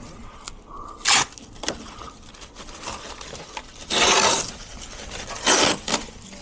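Handling noise: rustling and scraping, with a sharp knock about a second in and two louder rasping noises about half a second long, around four and five and a half seconds in.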